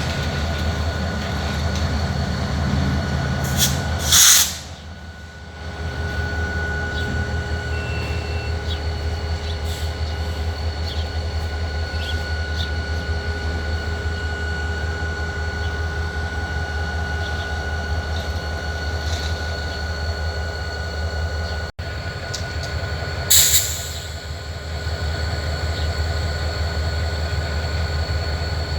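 EMD SD40-2 locomotive's 16-cylinder 645 diesel engine running steadily under load as the train pulls out, a deep rumble with a steady high whine over it. Two short loud bursts of noise break in, about four seconds in and again near the end.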